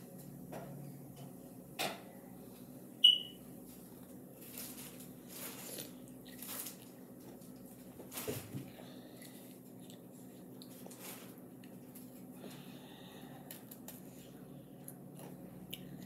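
Kitchen sounds: a steady low hum with scattered light knocks and clicks, and one short, sharp high-pitched squeak about three seconds in, the loudest sound.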